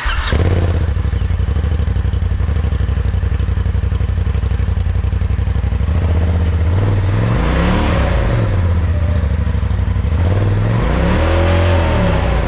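2021 Polaris RZR Turbo side-by-side on its stock exhaust, starting up and settling into a steady idle. It is then revved twice, each rev rising and falling in pitch, the second longer than the first.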